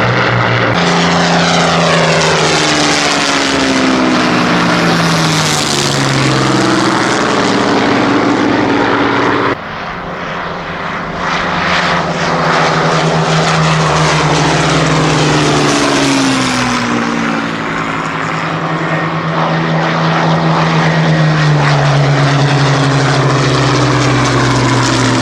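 Several Spitfires' and Hurricanes' V12 piston engines flying past together. Their overlapping notes slide down in pitch one after another as the aircraft go by. The sound changes abruptly about a second in and again near ten seconds in.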